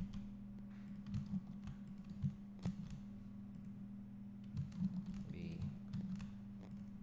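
Computer keyboard keys tapped at irregular intervals, a few separate clicks at a time, over a steady low hum.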